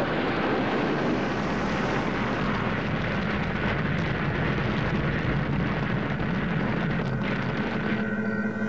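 Cartoon sound effect of a flying saucer's rocket thrusters firing as it lands: a steady rushing noise with a low hum underneath. A thin steady tone joins in about seven seconds in.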